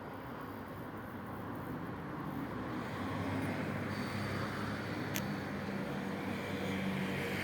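Street traffic noise, with a motor vehicle's engine hum growing louder about two to three seconds in and holding steady.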